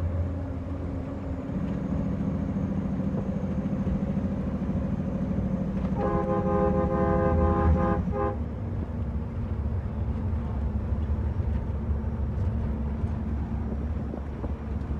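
Heavy truck's diesel engine running steadily under way, heard from inside the cab. About halfway through, a horn sounds once for about two seconds.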